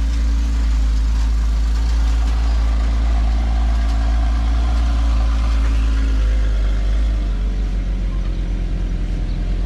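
Porsche Cayman R's 3.4-litre flat-six idling with a steady low drone as the car rolls off the transporter ramps; about seven seconds in the drone gives way to a low rumble that pulses a few times a second as the car pulls away.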